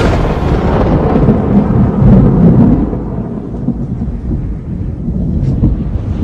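Thunder sound effect: a loud, low rumbling of thunder with some hiss over it, swelling about two seconds in and then slowly dying away.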